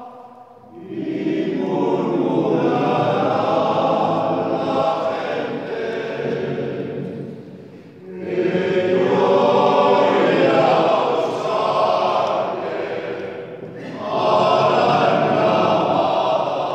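Men's choir singing in three phrases, with short breaks for breath between them, in a stone church.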